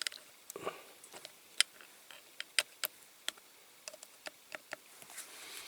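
Scattered light clicks and taps at irregular intervals, from small diecast model parts and tools being handled on a workbench.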